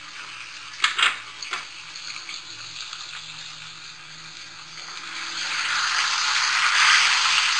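Sliced onions, tomatoes and chopped green chillies frying in oil in a metal pot, with a few short knocks against the pot about a second in. From about five seconds in the sizzling swells and grows loud as the mixture is stirred with a wooden spoon.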